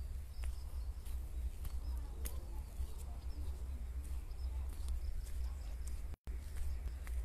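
Walking on a stony dirt road, heard through a phone microphone: a steady low rumble on the microphone with faint scattered crunches of footsteps. The sound cuts out for an instant about six seconds in.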